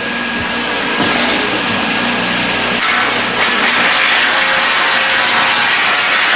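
A machine running with a steady, noisy whirr that grows louder and brighter about three and a half seconds in.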